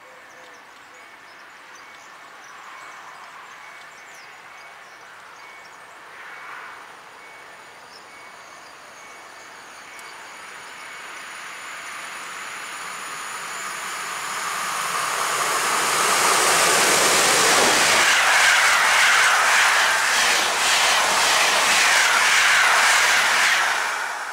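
EU160 (Newag Griffin) electric locomotive hauling an intercity passenger train, approaching and growing steadily louder. It passes at speed from about two-thirds through, with a fast clatter of wheels over the rails, then drops away sharply at the very end.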